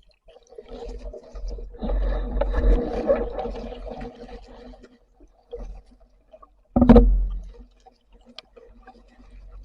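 Muffled water noise from a diver in the sea, sloshing and bubbling for a couple of seconds, then a single sharp knock just before seven seconds in.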